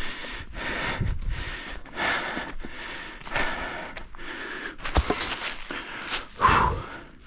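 A man breathing hard and audibly close to the microphone, in repeated heavy breaths, worn out from splitting wood by hand. There is a sharp knock about five seconds in and a louder thump about a second later.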